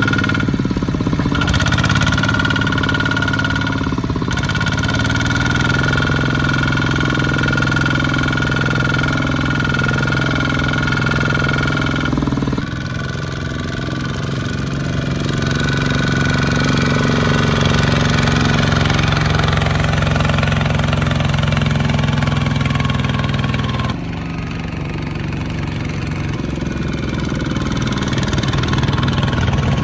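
Single-cylinder diesel engines of two-wheel walking tractors running under load as they haul rice sacks through mud, with a steady high whine over them through much of it. The engine sound changes abruptly twice, about twelve and twenty-four seconds in.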